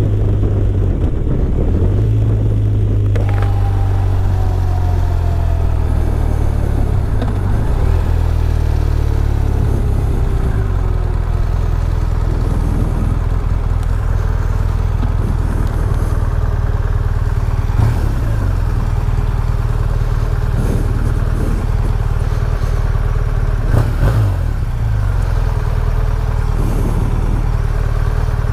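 BMW R1200RT's boxer-twin engine running, its pitch sliding down as the bike slows and then holding low and even. A few short knocks sound about two-thirds of the way through.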